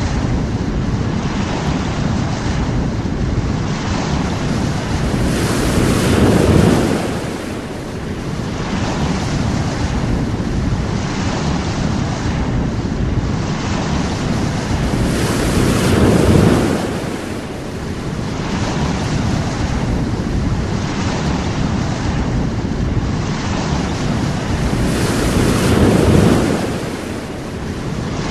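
Sea waves washing onto a shore, with a steady rush of surf between them; three waves swell up and break about ten seconds apart.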